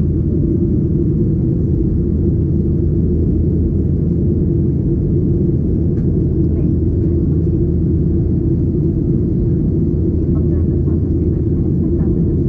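Steady low roar inside the cabin of a Boeing 737-800, from its CFM56 engines and the airflow, at an even, loud level. Faint voices come through it now and then.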